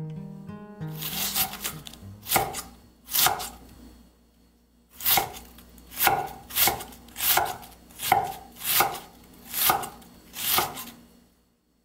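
A 52100-steel nakiri knife slicing through a cabbage wedge onto an end-grain wooden cutting board: a crisp crunch and knock on each stroke, about a dozen strokes, with a brief pause about four seconds in and then a steady pace of a little over one stroke a second.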